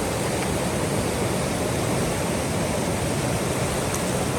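Steady rushing of a river, an even, unbroken water noise.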